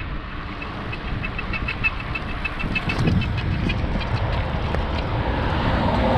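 Wind buffeting the microphone on a moving road bicycle, with road traffic in the background. From about half a second in, a quick run of high ticks, about five a second, lasts some three seconds.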